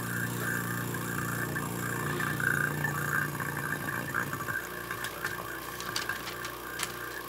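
Electric vacuum pump running steadily, pumping the air out of a glass bell jar. Its low hum weakens a little about four and a half seconds in.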